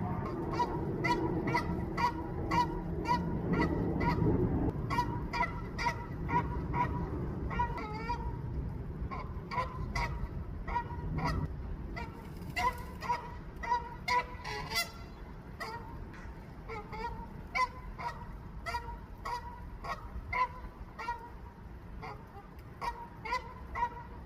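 A goose honking over and over in runs of short, evenly spaced calls with brief pauses between runs: a lone goose calling for its mate.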